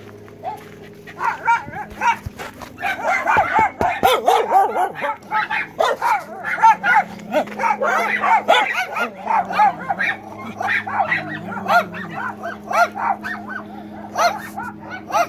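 A pack of dogs shut inside a travel trailer, barking and yelping in a dense, overlapping chorus that starts about a second in. A faint steady low hum runs underneath.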